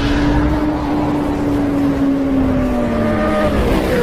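Motorcycle engine sound effect: one steady engine note that sinks slowly in pitch, then drops away more steeply near the end.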